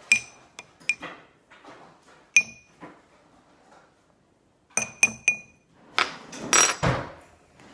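A utensil clinking against a glass container while stirring hot water with a melted dishwasher tablet in it. There are several sharp, ringing clinks in the first couple of seconds and again about five seconds in, then a longer, louder noisy stretch near the end.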